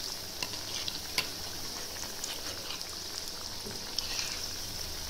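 Banana-flower and chana dal vadais deep-frying in a kadai of hot oil: a steady sizzle with a few faint ticks scattered through it.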